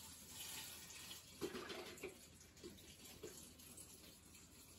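Chicken broth pouring faintly from a carton into an Instant Pot's stainless-steel inner pot, splashing onto dry linguine.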